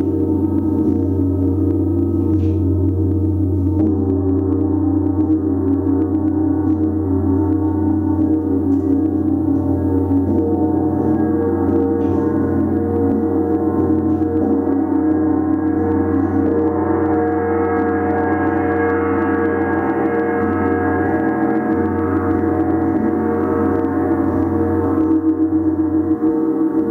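A large planetary Jupiter gong being played continuously with a beater, ringing as a steady, unbroken wash of many overlapping tones over a deep hum. The higher overtones swell up about two-thirds of the way through.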